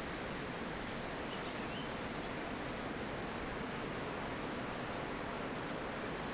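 Wind blowing steadily through forest trees, an even rushing hiss.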